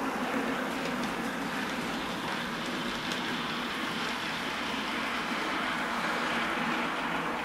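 Model railway train running on the layout, a steam-outline locomotive hauling loaded coal wagons: a steady running noise from the motor and wheels on the track.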